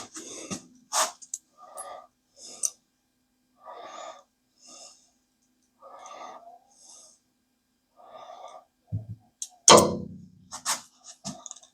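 A series of short, breath-like or scraping noises about a second apart, then a louder knock near the end, with a faint steady hum underneath.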